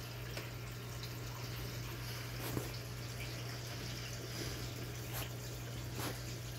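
Aquarium filter running: a steady trickle of water over a constant low hum, with a few brief clicks, the sharpest about two and a half seconds in.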